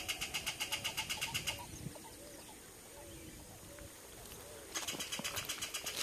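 Ringed kingfisher giving its loud, fast rattling call, several notes a second. It breaks off about a second and a half in and starts again near the end.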